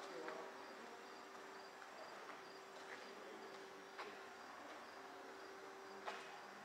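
Near silence: quiet room tone with a faint steady hum and faint, evenly repeating high pips, a couple a second.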